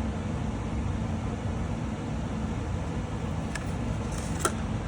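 Steady background hum, with a light click about three and a half seconds in and a sharper one near the end.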